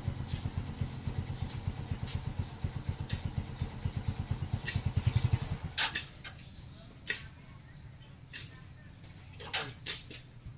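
A small engine running with a fast pulsing beat, dropping away about six seconds in; a few sharp swishing clicks follow.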